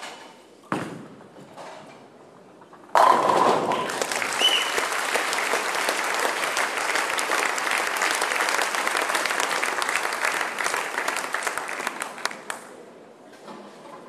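A bowling ball lands on the lane with a thud just after release, then about three seconds in it hits the pins with a loud crash for a strike. Applause follows at once and lasts about nine seconds before dying away.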